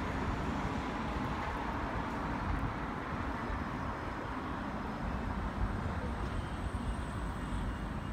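Steady urban traffic noise: the even rush of passing cars with a low rumble underneath.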